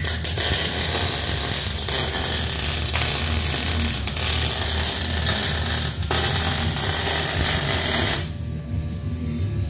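MIG welder arc crackling as a bead is laid on a steel frame rail, in two runs with a brief break about six seconds in, stopping about a second and a half before the end.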